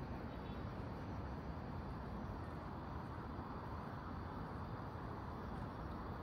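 Steady city street ambience: an even low rumble with no distinct events standing out.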